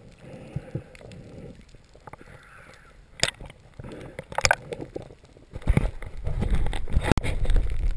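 Muffled underwater sounds of a diver handling spearfishing gear: a few sharp knocks and clicks against the camera housing, then a low rushing water noise that grows louder after about the middle.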